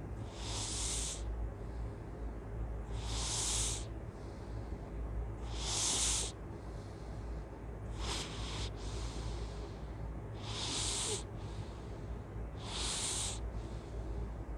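Loud, hissy snoring breaths of a sleeper, one about every two and a half seconds, six in the stretch.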